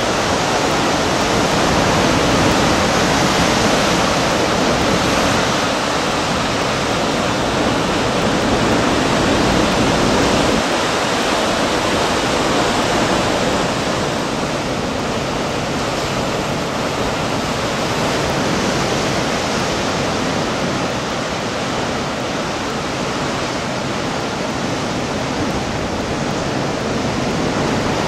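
Heavy ocean surf breaking over rocks: a continuous rush of churning white water, a little louder in the first half.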